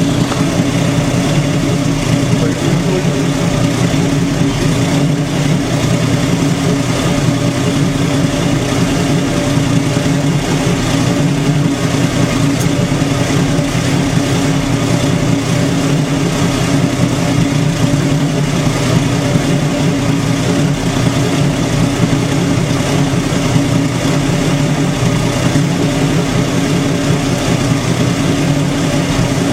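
AMC 258 (4.2 L) inline-six with a straight-pipe exhaust idling steadily.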